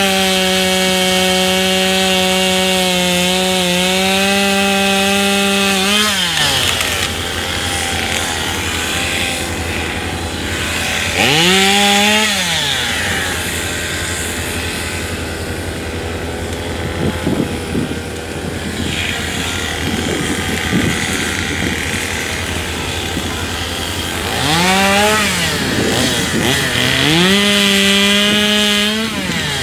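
Two-stroke chainsaw cutting through a fallen tree trunk. It runs at full throttle through the cut for about six seconds, drops back to idle, revs up briefly about twelve seconds in, then revs up twice more near the end.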